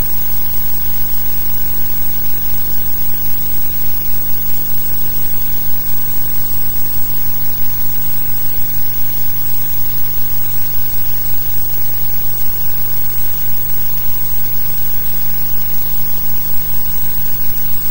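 Loud, steady hiss with a low electrical hum and no other sound: the noise floor of a blank soundtrack on a silent archival newsreel.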